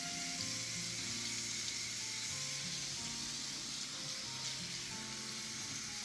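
Tap water running steadily into a kitchen sink over a griddle being washed, with background music of held notes that change about once a second.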